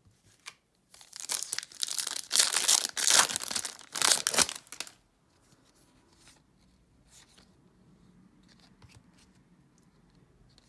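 A Topps baseball card pack's wrapper being torn open and crinkled in a run of loud rasps lasting about four seconds. After that come only faint soft ticks of the cards being handled.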